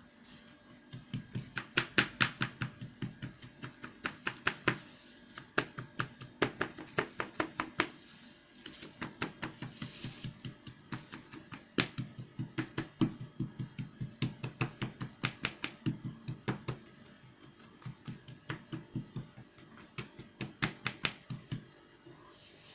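A drinking glass pressing and tapping down a biscuit-crumb base in a cake mould to pack it firmly: rapid light knocks, about five a second, in long runs with short pauses.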